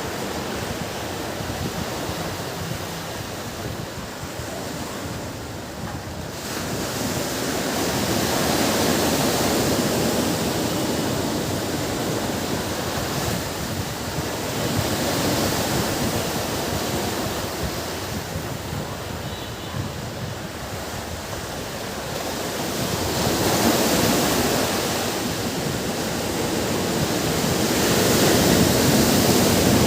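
Ocean surf: waves breaking and washing up a beach, a steady rush that swells and ebbs every several seconds as each wave comes in.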